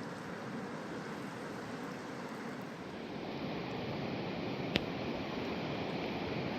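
Rushing water of a mountain river, a steady wash of noise that swells a little partway through, with one sharp click about three-quarters of the way in.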